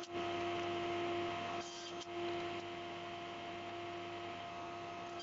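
Table saw running with a steady hum. The noise is louder for the first second and a half as the crosscut sled is pushed through a cut, then settles.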